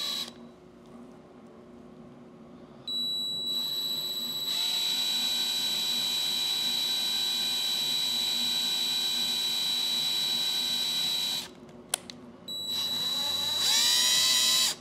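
DeWalt 20V MAX cordless drill running a tiny bit into a 3D-printed plastic part, with a steady high-pitched motor whine. It runs once for about eight seconds starting about three seconds in, then again briefly near the end, rising in pitch as it spins up.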